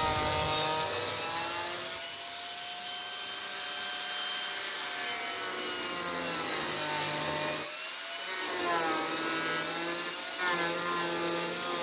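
Electric saw cutting along a marked angled line, its motor whine sagging and recovering in pitch under load, with a brief pause about eight seconds in before the cut continues.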